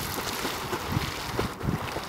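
Dog swimming, its paddling legs splashing the water irregularly, with two stronger splashes near the end; wind rumbles on the microphone.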